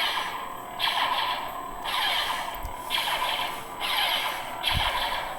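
A budget Adawlert Force FX-style lightsaber's sound board playing its blaster-deflection effect. About five zapping deflection sounds, each a quick glide in pitch, come roughly a second apart over the blade's steady electronic hum.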